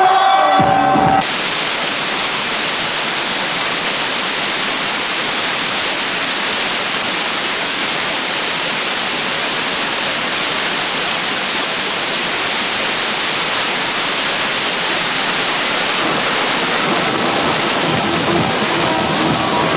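Loud, steady static hiss with no beat or tune in it. The club music cuts out about a second in and comes back faintly near the end.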